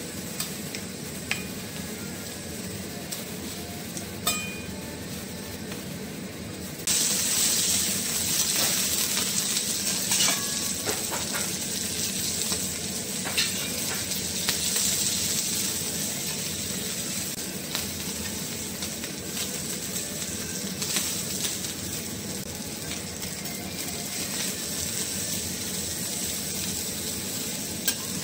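Kuruma prawn sizzling on a hot steel teppanyaki griddle, with scattered clicks and scrapes of a metal knife and spatula on the plate. About seven seconds in the sizzle jumps suddenly louder, then slowly eases.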